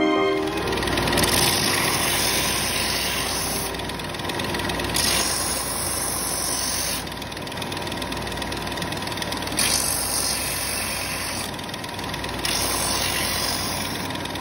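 Benchtop Ryobi belt sander running, its abrasive belt grinding the edges of plywood pieces. The hiss of the sanding grows brighter and duller in turn every couple of seconds over a steady motor noise.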